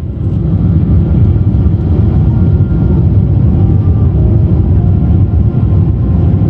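Loud, steady low rumble of a Boeing 777-300ER's engines and airflow, heard from inside the cabin, with faint steady tones above it.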